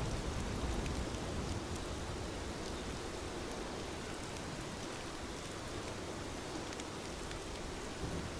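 Steady rain falling, an even hiss with faint scattered drop ticks. A low rumble underneath fades away in the first couple of seconds.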